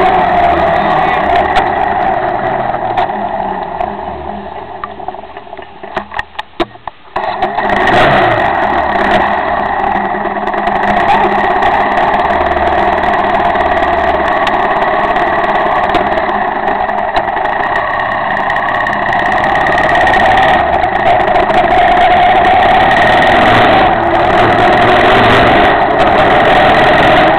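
Cagiva Elefant motorcycle engine running under way on a wet road: it eases off and drops in level about five seconds in, then picks up again about seven seconds in and runs steadily, its pitch rising and falling with the throttle.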